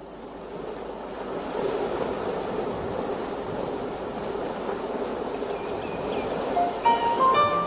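Ocean surf on the soundtrack: a steady wash of waves that fades in at the start and holds. Near the end, a short run of rising instrument notes enters as the song begins.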